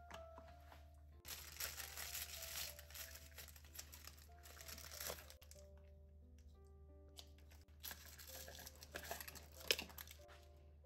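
Plastic bag crinkling and rustling as it is handled, in two spells of a few seconds each, over soft background music.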